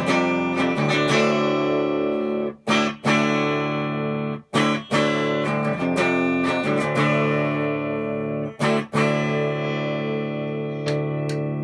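Chibson Les Paul-copy electric guitar played clean through an amp on its coil-split bridge pickup (an Iron Gear Tesla Shark humbucker split to single coil): strummed chords left to ring, broken by a few short stops.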